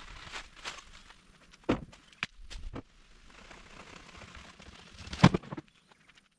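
Branches and dry brush snapping and crackling, with several sharp cracks; the loudest comes about five seconds in.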